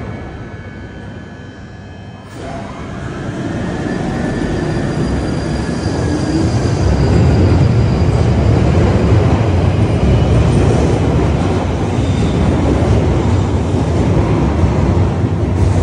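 London Underground 1995 Stock tube train pulling away from the platform. About two seconds in it starts to move, with a slightly rising motor whine over a deep rumble that grows louder as it gathers speed into the tunnel.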